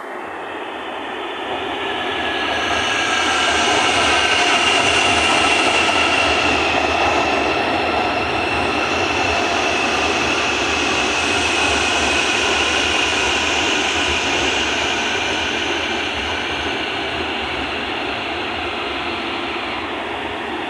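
Série 2500 electric commuter train running through, its steady rumble swelling over the first few seconds and then slowly easing, with a high whine and a slowly falling tone over it.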